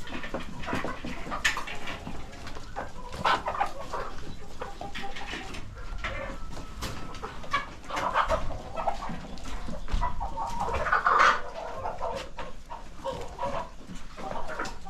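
A flock of chickens clucking and calling over one another, with many short clicks mixed in.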